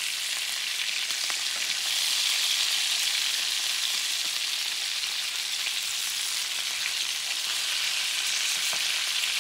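Meatballs frying in bubbling oil in a nonstick skillet, with a steady sizzle. A wooden spatula turns them onto their sides, making a few light scrapes and taps.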